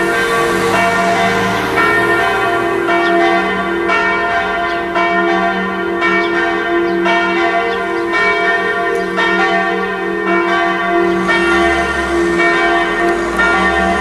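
Church bells ringing together in a continuous peal, the strokes overlapping so the tones hang on without a break.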